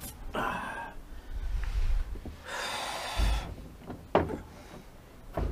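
A man breathing hard, with snort-like exhales, while he picks up and handles a large whiteboard sheet. A hissing rustle comes in the middle, and a sharp knock of the board comes just after four seconds in, the loudest sound here.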